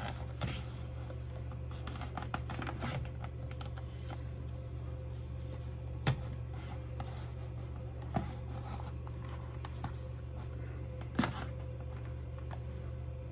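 A few scattered clicks and light scrapes as a Ring Alarm keypad is slid down onto its wall mount and pushed into place, the sharpest clicks about six and eleven seconds in, over a steady low hum.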